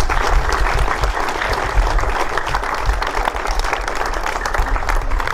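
A crowd applauding: many hands clapping at once in a dense, steady stream of claps.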